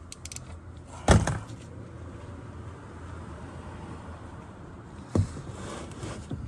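Hand tools at work under a car: a few light clicks, a loud metallic knock about a second in and another near the end followed by brief scraping, as a 13 mm socket is fitted to the engine's oil drain plug.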